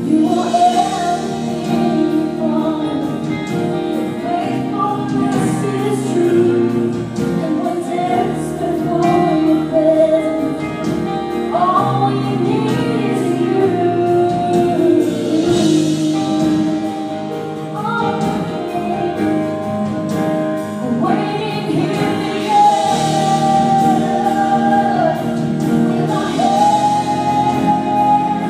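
A contemporary worship band performing a praise song live: sung vocals over electric and acoustic guitars and keyboard, playing continuously.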